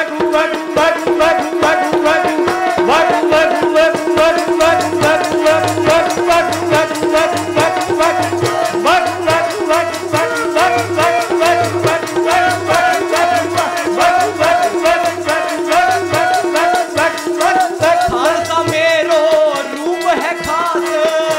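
Kirtan music without words: a harmonium holds a steady chord over tabla, while hand-held clappers clack in a fast, even rhythm. A deep tabla bass beat comes in about four seconds in and drops out near the end.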